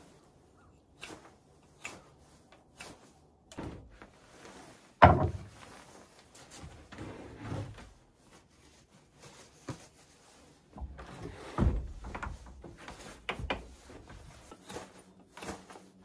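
Carved wooden handle knocking and bumping against a wooden plank door as it is held up and test-fitted: a string of irregular wooden knocks, the loudest and sharpest about five seconds in, with more clunks near twelve and thirteen seconds.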